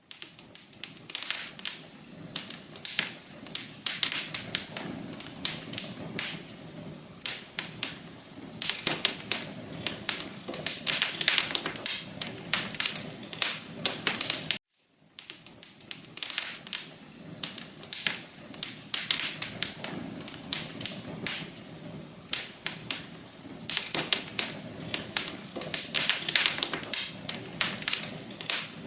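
Wood fire crackling in a fireplace: dense, irregular pops and snaps over a low, steady rumble of burning. The sound cuts out for a split second about halfway through, then carries on.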